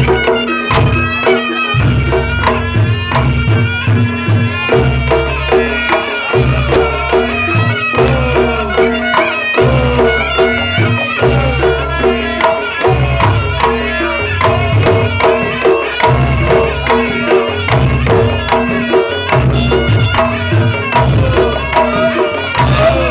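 Reog Ponorogo gamelan music: a kendang (Javanese barrel drum) drives a fast, dense drum pattern. Over it a slompret (shawm) plays a wavering, reedy melody, with a large hanging gong struck and a steady held tone underneath.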